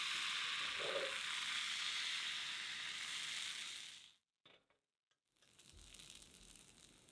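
Chocolate crepe batter sizzling in a hot pan as a steady hiss. It cuts off about four seconds in, and a fainter sizzle comes back over a second later.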